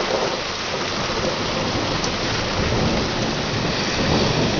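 Heavy rain falling steadily, with a low rumble of thunder building up underneath from about halfway through.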